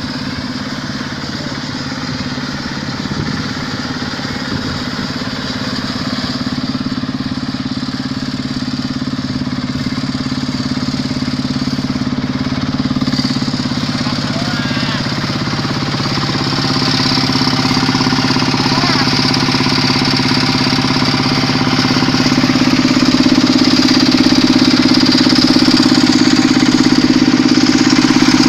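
Quick H-140R combine harvester's Kubota diesel engine running steadily, growing gradually louder.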